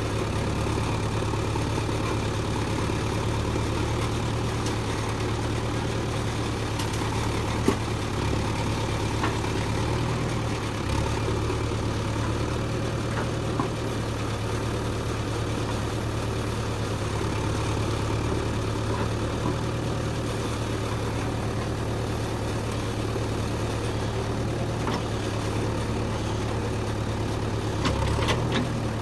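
Heavy diesel engine of a backhoe loader or tractor running steadily at low revs, with a few faint knocks.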